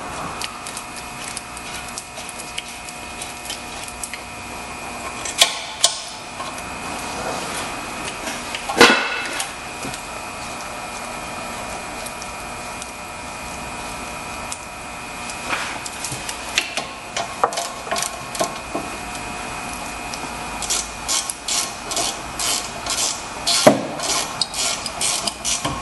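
Rear brake caliper bolts being run in and tightened with a ratchet wrench: a few separate metal knocks, then a quick run of ratchet clicks over the last few seconds, over a steady background hum.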